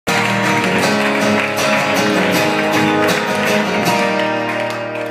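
Acoustic guitar played live, with rapidly repeated strokes and chords ringing out, growing quieter near the end.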